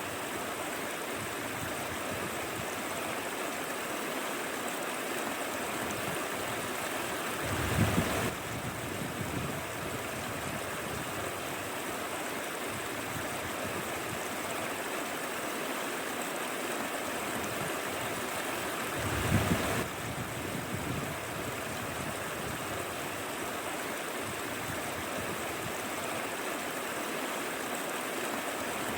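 Mountain stream rushing steadily over rocks, a continuous even wash of water. Twice, about eight seconds in and again near twenty seconds, a brief louder low rush swells for about a second and cuts off sharply.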